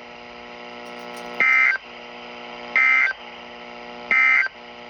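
Weather radio playing the Emergency Alert System end-of-message data: three short, loud, raspy bursts of high warbling tones about 1.4 seconds apart, marking the close of a tornado warning, over a steady low hum.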